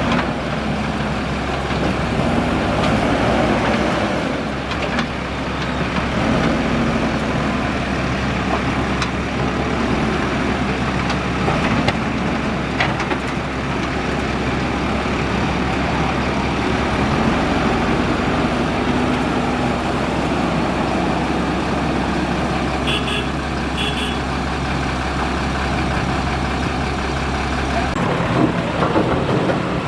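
Diesel engines of a backhoe loader and tractors running steadily at work. Two short high beeps come about a second apart later on, and the engine note drops near the end.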